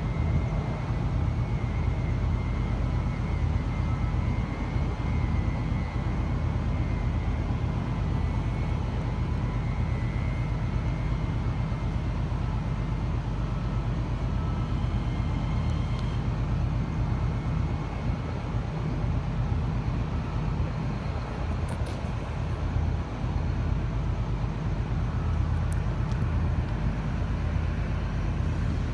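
New Intercity Fleet double-deck electric train moving slowly along the platform: a steady low rumble with a faint high whine that fades about halfway through, and a few light clicks near the end.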